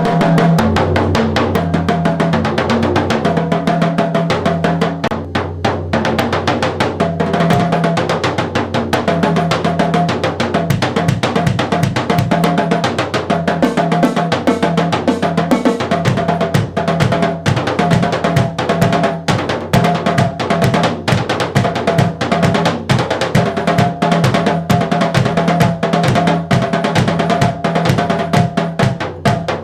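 Drum kit with 14- and 16-inch Remo roto toms played in a fast, busy groove, dense with strikes throughout. Sustained pitched notes sit underneath and step from one pitch to another.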